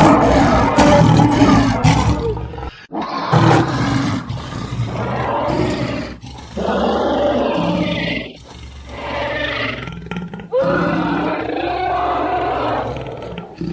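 Tyrannosaurus rex roar sound effect, a film dinosaur roar layered with a lion's roar: about five long, loud roars in a row with short breaks between them, one of them falling and then rising in pitch.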